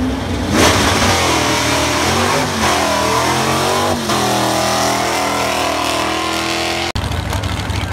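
A gasser drag car's engine launching hard off the line about half a second in, revving with its pitch climbing and twice dropping back at gear shifts as it runs down the track. Near the end it cuts off abruptly to a steady low engine rumble.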